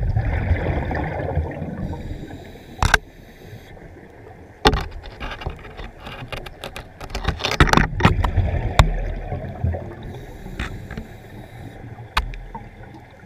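Underwater sound heard through a camera housing: a diver's exhaled air bubbles rush out twice, once at the start and again about seven seconds in, with a few sharp knocks and clicks from the housing being handled against the rock.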